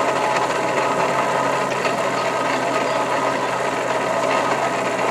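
Coal forge's electric air blower running steadily, a constant hum with rushing air.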